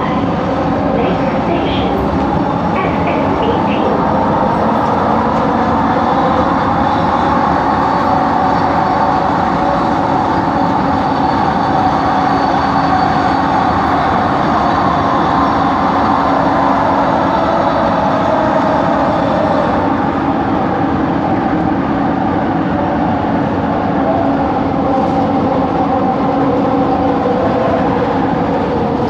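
Steady running noise inside a moving train coach, with a continuous motor whine holding several steady pitches. This is the weird motor noise of train Set 70, which comes from coach 4.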